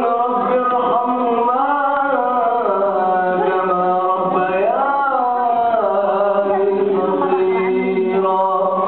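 A man reciting the Quran in a melodic chanted style, drawing out long held notes that rise and fall slowly in pitch.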